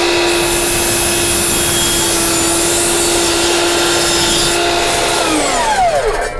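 DeWalt DWE7491 table saw running at full speed with a steady whine, then switched off about five seconds in and winding down, the pitch falling as the blade coasts to a stop.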